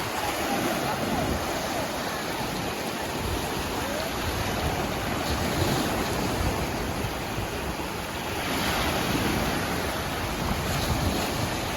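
Sea waves washing onto the shore, with wind on the microphone. A wave surges up louder about eight and a half seconds in.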